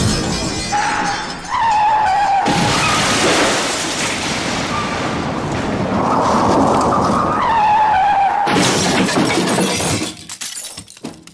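Car crash sound effect: tyres screech and the car crashes with glass shattering, with a second screech and crash a few seconds later. The wreckage then clatters and dies away near the end.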